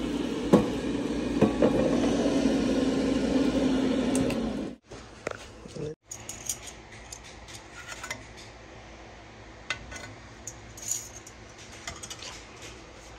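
Ninja dual-zone air fryer running with a steady fan hum and a few clicks, which stops abruptly about five seconds in. After that there are only scattered light clinks of kitchenware over a quiet background.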